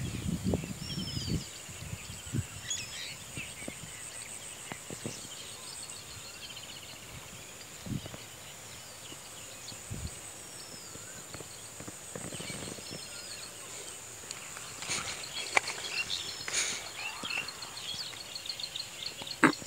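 Outdoor rural ambience with scattered bird chirps and whistles over a steady high-pitched hiss, with a rapid trill and a few faint clicks in the second half.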